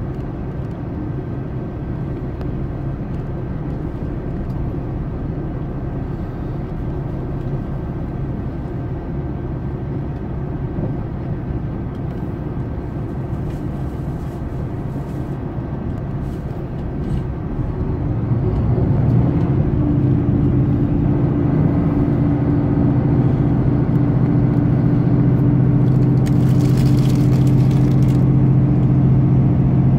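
Running noise of a Super Hokuto diesel limited-express train heard from inside, a steady rumble of the train on the rails. About two-thirds of the way through it grows louder and a steady low engine drone comes in. Near the end there is a short hiss.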